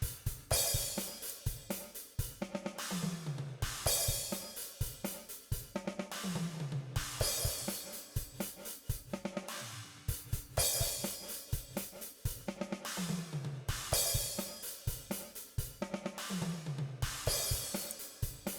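Overhead track of a DrumGizmo virtual drum kit playing a repeating groove: kick, snare and hi-hat, with a cymbal crash about every three and a half seconds, each one preceded by a low drum whose pitch falls. A short Dragonfly plate reverb is on the track, adding space to the kit.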